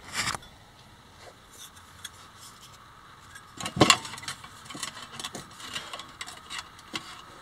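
Sheet metal handled against a metal pipe: a single sharp clank about four seconds in, then light metallic clinks and scraping as the thin sheet is wrapped around the pipe.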